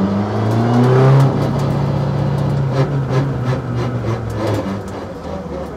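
Audi RS3 LMS TCR race car's turbocharged 2.0-litre four-cylinder engine, heard inside the cabin, revs rising over about a second as the car pulls away, then running steadily at low speed with a series of sharp clicks and clunks, easing off near the end.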